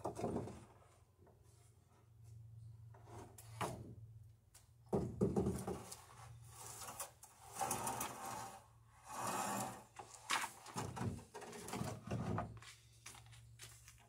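Long wooden boards being lifted and shifted on a lumber rack: irregular knocks, clatters and scrapes of wood on wood.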